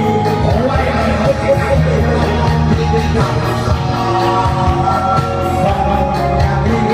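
A song playing at a steady, loud level: a singing voice over instrumental accompaniment.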